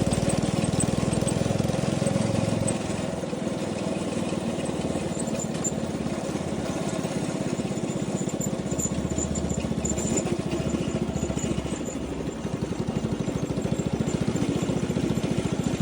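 Single-cylinder four-stroke 212cc go-kart engine running. It is louder for the first few seconds, drops back in the middle, and picks up again about three-quarters of the way through as the throttle changes.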